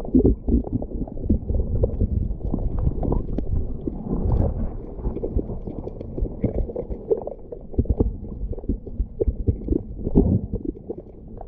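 Muffled underwater sound picked up by a camera held in the sea: irregular low thumps and knocks with dull water movement as hands stir the water close to the lens.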